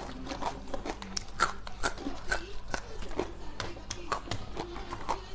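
Close-miked chewing of a mouthful of food: irregular crisp crunches and wet mouth clicks, several a second, over a faint low hum.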